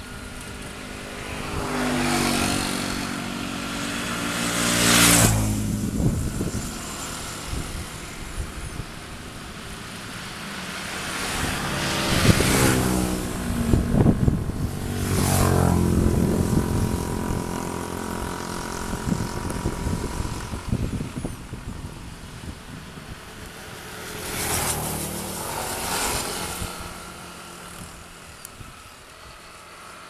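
Motor vehicle engines swelling and fading three times, their pitch dropping as each one passes close by, over a lower steady engine running throughout.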